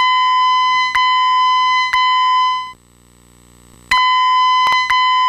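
Voice-evacuation fire alarm speaker sounding the steady electronic alert tone of an EST evacuation message. The tone holds for nearly three seconds, stops for about a second, then comes back. Sharp clicks cut across it, about once a second at first and more often in the second stretch.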